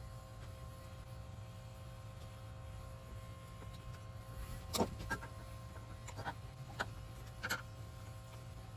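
A few faint clicks and light knocks of hands and tools on the fuel line as the inline fuel filter is turned round to face the right way, over a steady low hum. The clicks come singly, spaced a fraction of a second to about a second apart, from about halfway in.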